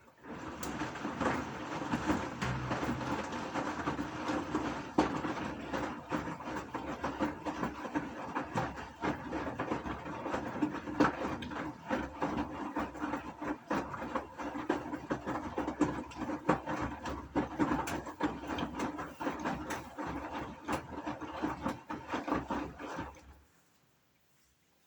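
Gorenje washing machine drum turning through a wash, a steady motor hum with many small clicks and knocks of the load tumbling; it stops suddenly near the end, as the drum pauses between turns.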